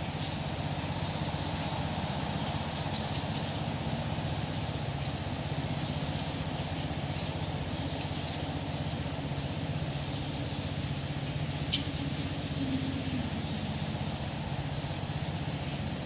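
A steady low hum, with faint high bird chirps here and there and one brief sharper call about three-quarters of the way through.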